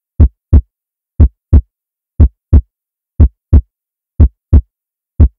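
Heartbeat sound effect: pairs of deep thumps, lub-dub, repeating about once a second with silence between.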